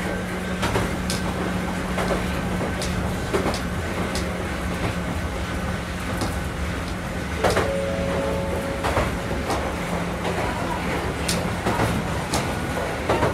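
Wakayama Electric Railway 2270-series electric railcar running, heard from inside the passenger cabin: a steady low hum with wheels clacking over rail joints about once a second, and a short ringing tone about halfway through.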